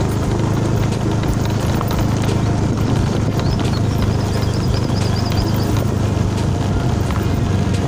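Small motorcycle engine running steadily on a rough, bumpy dirt road, with frequent knocks and rattles from the jolting. Faint high chirps come and go in the middle.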